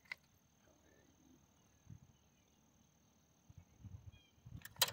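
Faint outdoor ambience with a steady high-pitched tone, low rumbling handling noise, and a sharp click just before the end.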